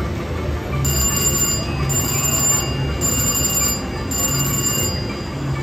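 Bourbon Street Easy Wilds three-reel slot machine sounding its electronic chime while the reels spin: four ringing pulses about a second apart, over steady casino background noise.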